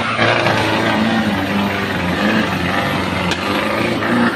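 Off-road vehicle's engine revving hard under load, its pitch rising and falling, with a single sharp snap about three seconds in.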